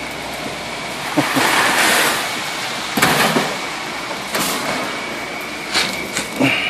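Wheelbarrow load of wet concrete being tipped out, the concrete sliding out with a rushing scrape that swells and fades in the first half, followed by a few sharp knocks of the wheelbarrow.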